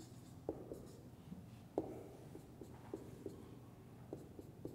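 Marker pen writing on a whiteboard: faint strokes and about nine short, sharp taps at irregular intervals as digits, dots and dashes are drawn.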